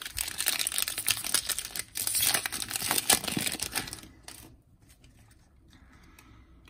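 A Panini Donruss trading-card pack's plastic wrapper being torn open and crinkled in the hands: dense crackling with sharp clicks for about four seconds.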